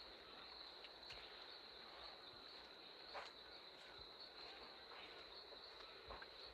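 Faint, steady high-pitched insect drone, with a few soft ticks.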